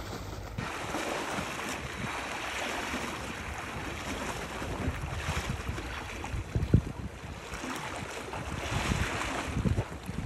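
Sea waves washing in and surging at high tide, the rush of water swelling and ebbing several times, with wind buffeting the microphone in low thumps.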